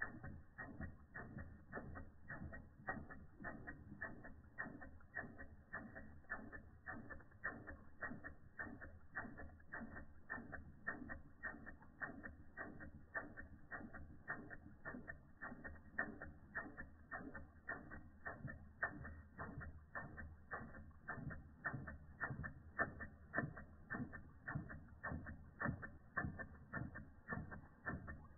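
Small live-steam toy engine (a replica of an Ernst Plank tripod engine) running steadily, giving a quick, even ticking beat of about three to four clicks a second.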